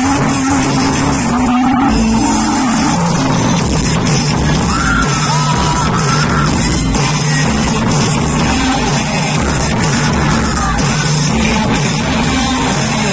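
Loud music with a singing voice, played over a stage sound system.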